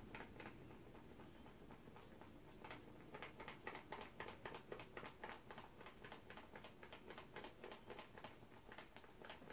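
Faint crinkling of a plastic packet being handled and worked open, as a quick run of small crackles that starts about three seconds in.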